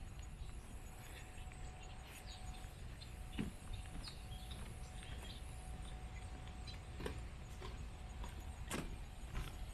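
Footsteps of a person walking from a wooden boardwalk onto sand, a few irregular scuffs and clicks over a low, steady outdoor rumble.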